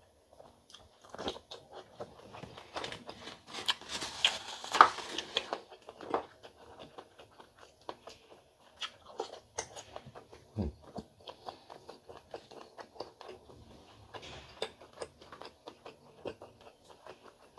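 A person chewing and eating close to the microphone, with many short, wet mouth clicks and smacks; it gets louder for a couple of seconds about four seconds in.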